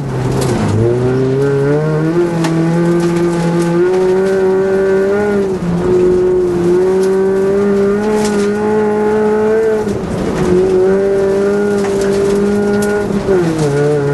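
Rally car engine heard from inside the cabin, driven hard on a snow stage. The revs dip sharply about half a second in, then climb and stay high, with brief dips about five and ten seconds in and a drop near the end. Scattered short clicks and knocks sound over it.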